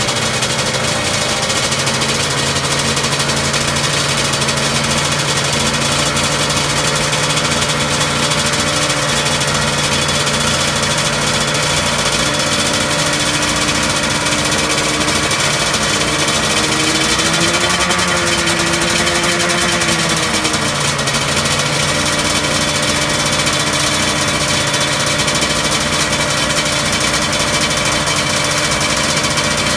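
1989 Honda NSR500's 500 cc two-stroke V4 idling steadily on its stand, its revs rising gently about halfway through and settling back to idle after a few seconds.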